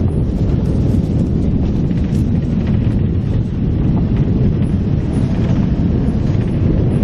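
Loud, steady low rumble of a vehicle in motion, with no voices.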